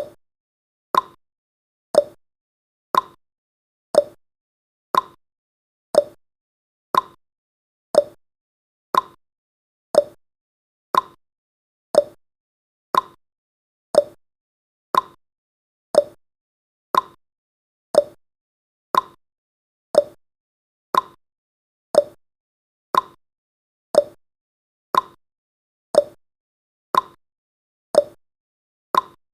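Clock tick-tock sound effect of a countdown timer, one short click every second, alternating between a higher tick and a lower tock.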